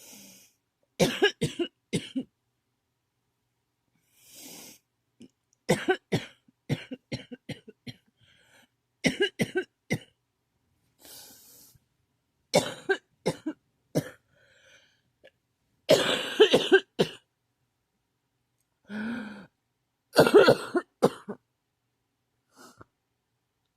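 A person coughing in a fit: about six bouts of several short, sharp coughs each, with breaths drawn in between.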